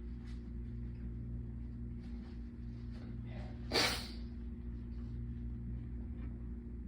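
A woman sneezes once, suddenly and loudly, about four seconds in, with a short in-breath just before; it is one sneeze of a fit brought on by being cold. A steady air-conditioner hum runs underneath.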